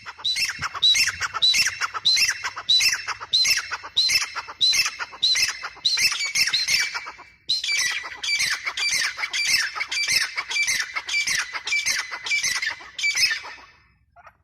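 Female grey francolin calling: a loud series of harsh, evenly repeated call notes, about one and a half to two a second, in two long runs with a brief break about halfway.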